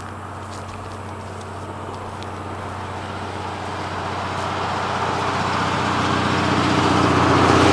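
A motor vehicle approaching on a nearby road, its engine hum and tyre noise growing steadily louder.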